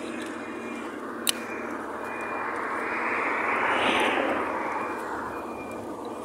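A vehicle passing on the road, its tyre and engine noise swelling to a peak about four seconds in and then fading away. A single sharp click about a second in.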